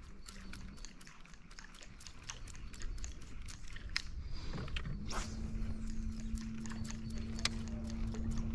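Scattered light clicks and taps. About five seconds in, a steady low motor hum starts and runs on under them.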